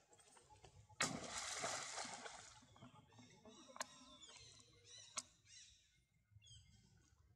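Water splashing as a swimming monkey moves through a pond. A sudden splash about a second in fades over a second or so, followed by two sharp clicks and faint high chirps near the end.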